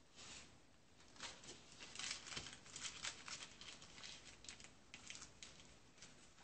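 Tissue paper faintly rustling and crinkling as it is wrapped and creased around a bar of chocolate, in an irregular string of short, soft crackles.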